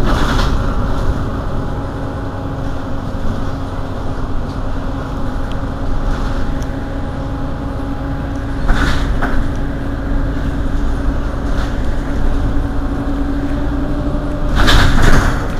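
Mercedes-Benz Citaro city bus standing with its engine idling, a steady low rumble with a constant hum over it. Three short hisses break through, the loudest near the end.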